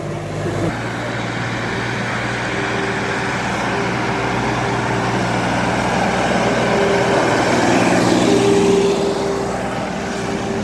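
Sonalika DI 35 tractor's three-cylinder diesel engine running steadily under load as it pulls a 17-disc harrow through the soil.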